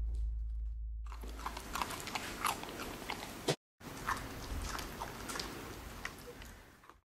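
Border Collie puppy chewing a raw carrot: a run of sharp, irregular crunches and bites, breaking off briefly about halfway.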